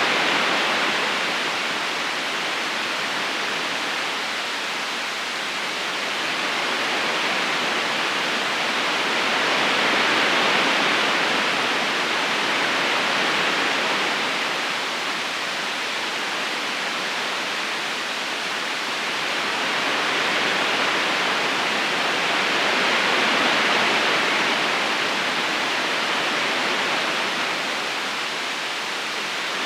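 Steady rushing of flowing river water, a smooth even hiss with no distinct splashes, swelling and easing slowly every several seconds.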